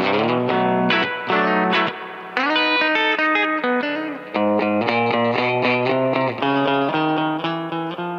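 Fender Coronado II electric guitar played through a Keeley Compressor Plus pedal and amp, picking a country-style run of notes and chords in phrases, with two short breaks between them.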